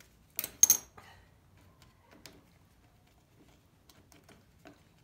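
Two sharp metallic clinks about half a second in, from a socket wrench and its extension being handled against the mower's engine parts, then faint scattered ticks and clicks as the air filter housing is handled.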